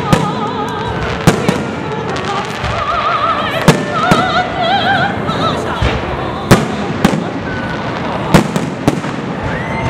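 Fireworks display: aerial shells bursting in a string of sharp bangs, roughly one a second, with several close together.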